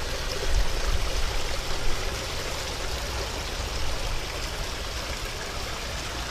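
Water running steadily over the rocks of a backyard pond's waterfall and stream, an even rushing and trickling.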